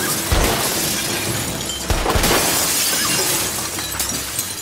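Large glass office windows shattering and pouring down in a continuous cascade of breaking glass, with heavier crashes about a third of a second and two seconds in.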